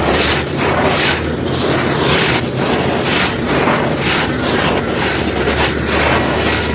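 Dry molded black sand shapes crumbling, a continuous gritty crunching with frequent louder crunches.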